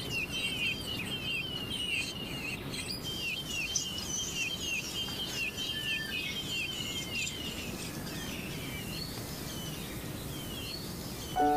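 Bonin white-eye nestlings begging at the nest: a rapid run of short, down-slurred chirps, about three a second. After about seven seconds they thin to scattered, higher chirps.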